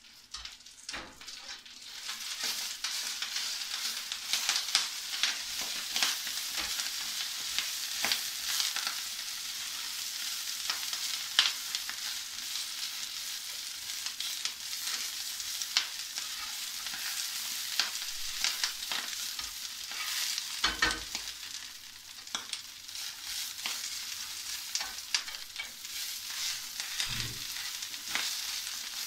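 Chopped cavolo nero sizzling in a little oil in a frying pan as it is stirred and turned, with a utensil scraping and clicking against the pan. The sizzle comes up after the first couple of seconds.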